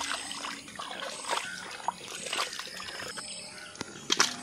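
Water sloshing and trickling as raw duck pieces are washed by hand in a steel bowl, with irregular small splashes and one sharp knock near the end.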